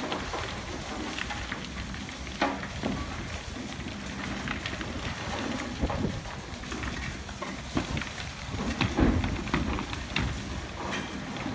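High-reach demolition excavator breaking up a concrete silo wall: its engine runs steadily under a constant crackle of cracking concrete and falling rubble. Scattered sharp knocks run through it, the loudest about nine seconds in.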